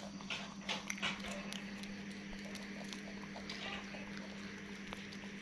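Young macaques eating raw green bean pods: short crisp crunches and snaps of chewing, thickest in the first second or so and scattered after, over a steady low hum.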